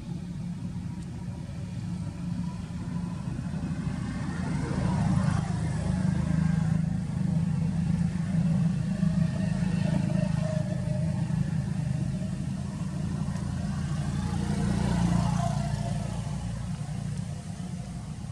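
Motor vehicle engines running close by, a steady low rumble that grows louder about five seconds in and again about fifteen seconds in.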